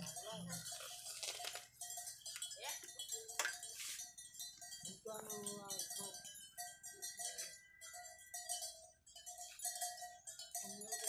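Bell on a walking elephant clanking irregularly, giving short ringing notes, with faint voices here and there.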